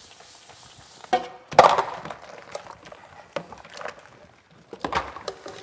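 Dishes and plastic containers knocking and clattering in a kitchen sink during washing up: a sharp clatter about a second in, the loudest one just after, then scattered lighter knocks.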